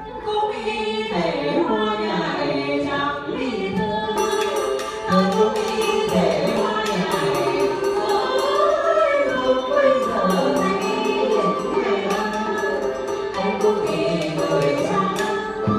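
Traditional Vietnamese water-puppet theatre music: a voice singing a folk song over a live ensemble of traditional Vietnamese instruments. Sharp clicking percussion strokes join about four seconds in.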